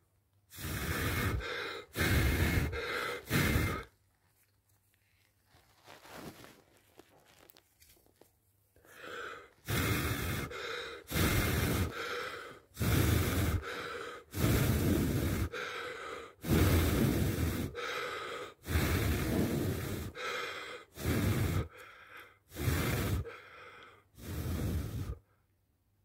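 Repeated puffs of breath blown close to the microphone, each about a second long. They come as a short run of four, then after a pause as a longer run of a dozen or so. The puffs are blown onto a goldfinch's neck feathers to part them and bare the skin for a spot-on drop.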